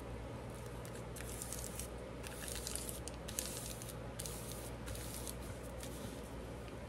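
Faint rustling and scratching of paper being handled and pressed, in short scattered strokes, over a low steady hum.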